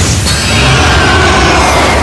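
Anime sound effects of the bone-snake Bankai Hihiō Zabimaru appearing: a sudden, loud booming rush with a rising sweep near the end, and music beneath it.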